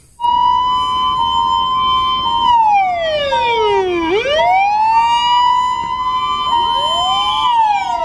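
Electronic sirens of Japanese fire-department vehicles responding: a loud wail holds a steady high pitch, winds down about two and a half seconds in to a low point near four seconds, climbs back up and holds, then starts to wind down again near the end. A fainter second siren sounds alongside.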